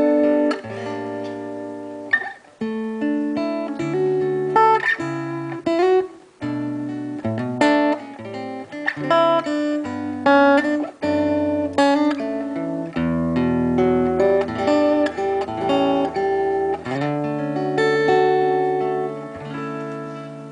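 Solo acoustic guitar playing the instrumental outro of a song: picked and strummed chords that change every second or so and ring out, with no singing.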